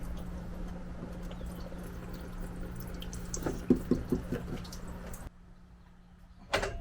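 Fluid from the engine dripping and trickling into a small drain pan, with a few sharper ticks about three and a half seconds in. The sound cuts off suddenly about five seconds in.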